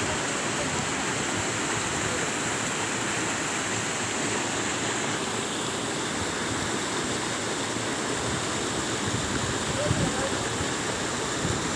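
Waterfall: water pouring over a rock ledge into a pool, a steady, even rush.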